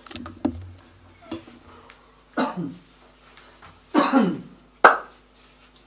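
A person coughing: two short coughs about a second and a half apart, then a single sharp click.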